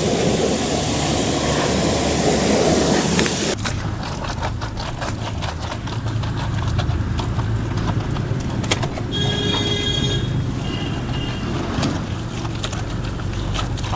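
High-pressure car washing machine spraying water in a dense hiss that cuts off abruptly a few seconds in. After it, the machine's pump motor hums steadily with rapid clicking, and a brief high tone sounds about nine seconds in.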